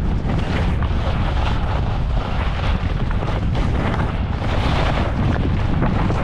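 Wind buffeting the microphone on a moving skier, a constant low rumble. Over it, skis hiss and scrape over spring snow in uneven surges, as with a run of turns.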